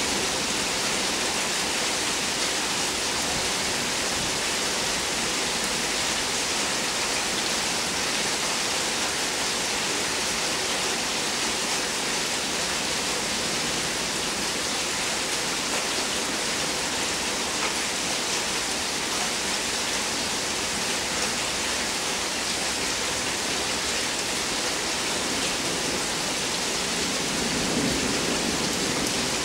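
Steady downpour of rain, an even hiss with no break.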